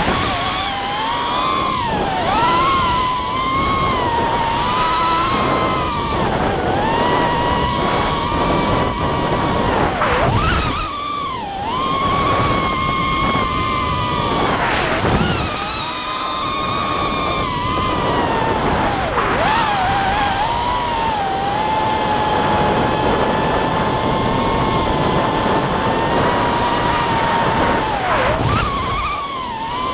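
Racing quadcopter's DYS 2205 2300 KV brushless motors spinning DAL props, heard from the onboard camera: a high whine whose pitch rises and falls with the throttle, dropping sharply several times as the throttle is chopped, then holding one steady pitch for several seconds before a last dip near the end.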